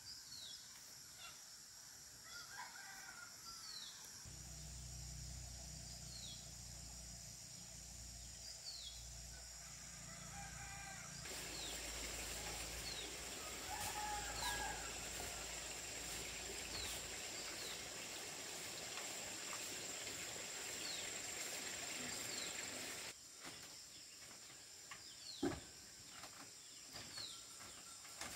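A rooster crowing about three times, over short high falling chirps that repeat every second or two. A low hum runs through the first half, and there is one sharp knock near the end.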